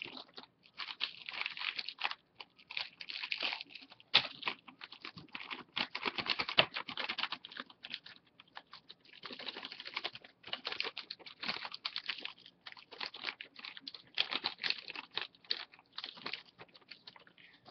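Crinkling and rustling of a Lego booster pack's plastic packaging being handled and opened, with many small irregular clicks and a few sharper ticks.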